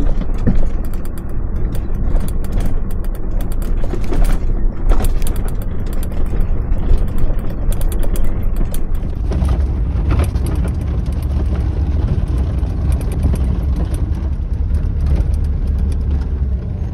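Mercedes-Benz Vario 818 expedition truck driving over a rough, potholed gravel road, a steady rumble of engine and tyres with constant rattling and knocking from the cab. About nine seconds in the sound shifts to a heavier low rumble.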